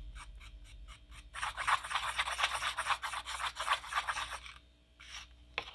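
White plastic utensil scraping and stirring a thick brown acrylic paint and Mod Podge mixture around a disposable plate. It starts with quick light strokes, runs into a steady stretch of scraping strokes, pauses, and ends with a couple of single strokes.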